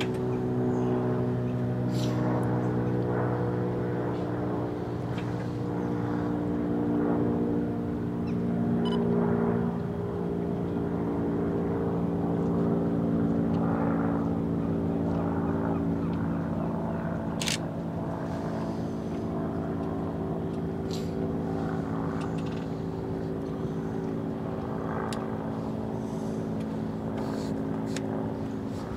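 An engine runs steadily, and its pitch shifts slightly about ten seconds in. A few sharp clicks are scattered through it.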